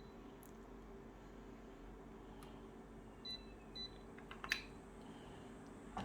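Faint electronic beeps and clicks over a low steady hum: two short high beeps around the middle and a few scattered clicks, the loudest about three-quarters of the way through.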